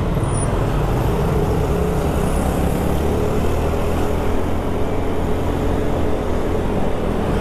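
Yamaha Mio scooter's single-cylinder four-stroke engine running steadily while riding in busy traffic, with road and wind rumble.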